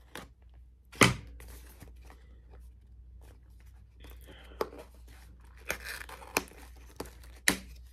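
Packaging of a COVID-19 self-test kit being handled and torn open: rustling and tearing, with a sharp knock about a second in and several clicks and taps in the second half.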